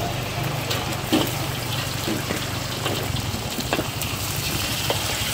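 Eggs sizzling in hot oil in a steel wok over the steady rush of a gas wok burner, with scattered sharp knocks and scrapes of a metal spatula on the wok, the loudest about a second in.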